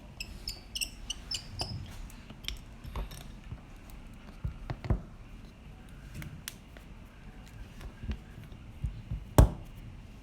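Small clicks and taps of tools and parts being handled while an iPhone XS is put back together: a cluster of light metallic ticks in the first couple of seconds, scattered taps after, and a sharper click near the end.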